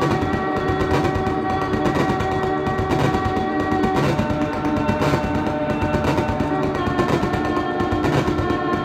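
Eurorack modular synthesizer patch built around a Metabolic Devices Coherence running at audio rate: several steady held tones over a dense, fast rattling stutter, recorded on an iPhone microphone.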